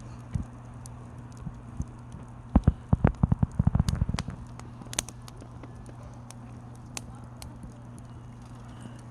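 Pine firewood burning, with scattered sharp crackles and pops over a steady low hum. About two and a half seconds in comes a quick run of about a dozen dull knocks lasting under two seconds.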